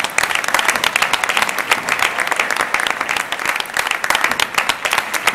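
Audience applause, many hands clapping at once; it swells quickly at the start and then holds at an even level.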